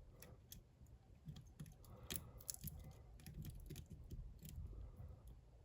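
Faint, scattered small metallic clicks and ticks of a diamond pick working the side pins of a hardened-steel bike lock cylinder held under tension.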